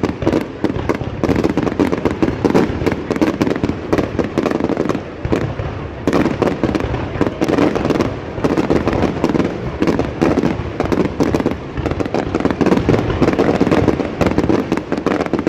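Fireworks display at close range: a dense, continuous barrage of bangs and crackles from shells launching and bursting, many in each second.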